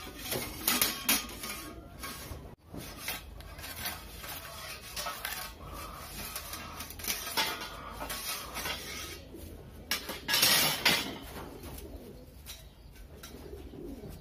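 Hollow white-painted steel tubes of a flat-pack table frame clanking, rattling and scraping as they are handled and knocked together. The loudest knocks come about a second in and again around ten to eleven seconds in.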